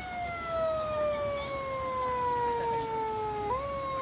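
Police-car siren sounding a wail, its pitch falling slowly, then jumping back up about three and a half seconds in and falling again.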